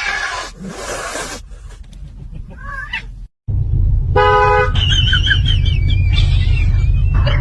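Cat hissing, with a short growl, then after a cut a brief car horn toot over a heavy low rumble, followed by a high wavering cry.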